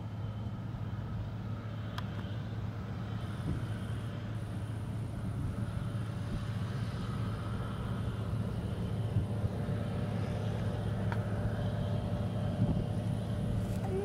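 John Deere combine harvester running under load while cutting grain: a steady low engine and machinery drone that grows slowly louder as the machine comes closer.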